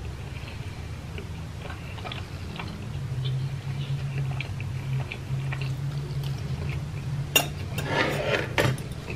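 Close-miked chewing and small mouth clicks over a low steady hum, then a metal fork clicking and scraping in a plastic takeout container between about seven and a half and nine seconds in, the loudest part.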